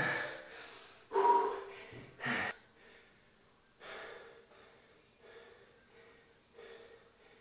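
A man breathing hard while recovering from a high-intensity interval set. A few loud, heavy breaths come in the first couple of seconds, then softer breaths about once a second.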